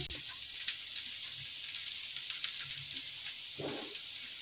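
Boiled sweet potato pieces sizzling in ghee on a nonstick tawa over a low gas flame: a steady soft hiss with fine crackles.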